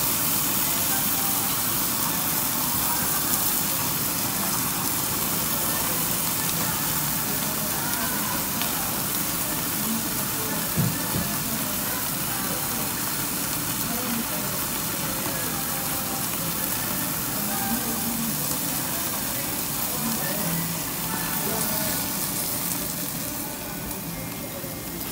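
Marinated karubi beef and onion sizzling on a gas-fired yakiniku grill plate, a steady hiss that eases near the end, with one short knock partway through.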